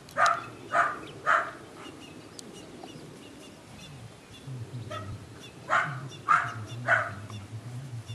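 Belgian Malinois puppy barking: three sharp barks about half a second apart, then after a pause a softer bark and three more sharp barks at the same pace.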